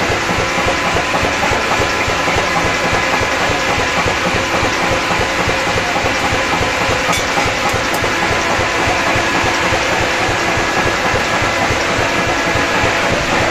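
Forge blower running steadily, forcing air through the fire, with the steady rush of the flame over it.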